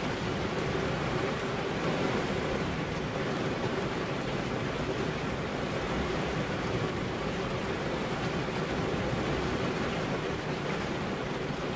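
Steady rain falling, an even hiss that holds constant throughout.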